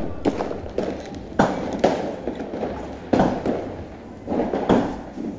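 Fireworks going off: about half a dozen sharp bangs at irregular intervals, each trailing off in a rumbling echo.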